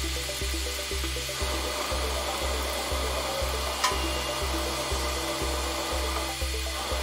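Background music with a steady bass pulse and a melody, over a steady rushing noise. A single sharp click about four seconds in.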